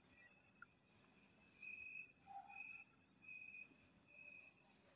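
Near silence with faint insect chirping: a high chirp about once a second over a faster, higher pulsing.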